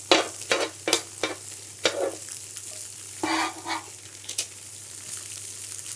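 Tofu cubes and tenderstem broccoli sizzling in hot oil in a cast iron pan: a steady hiss with many sharp clicks and pops, most of them in the first two seconds, and a brief louder burst a little after three seconds in.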